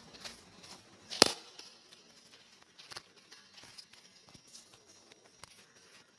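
Dough handled close to a microphone: scattered soft taps and clicks, with one loud sharp click about a second in.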